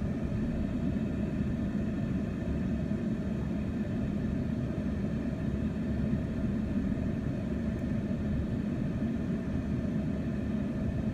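Combine harvester running in the field, a steady low engine rumble with a faint hum of machinery that holds even throughout.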